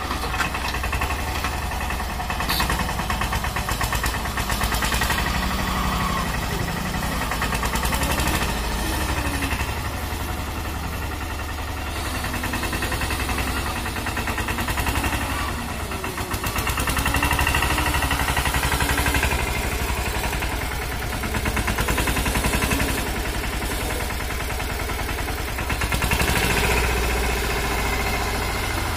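Diesel engine of a Preet tractor with a front loader running steadily, its sound swelling and easing several times as the loader works.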